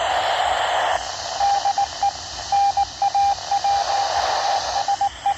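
FM satellite downlink hiss from a Yaesu VX7R handheld radio tuned to the ISS FM repeater. About a second in the hiss eases and a single steady tone starts, keyed on and off in short and long beeps.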